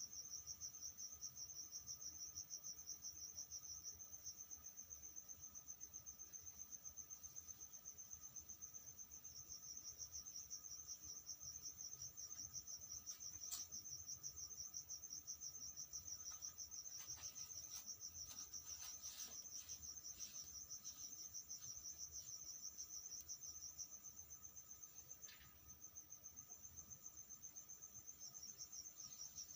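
Cricket chirping in a steady, fast-pulsing high trill that dips briefly late on, with a few faint rustling clicks in the middle.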